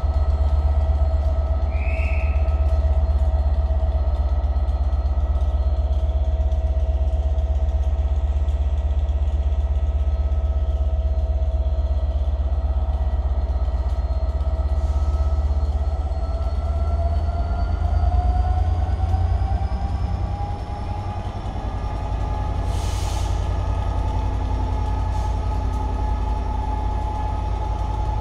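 Class 67 diesel locomotive's two-stroke V12 engine running while the train stands in the station, a deep steady rumble with a whine in it. About two-thirds of the way through the whine rises in pitch and holds higher, and a short hiss comes a few seconds later.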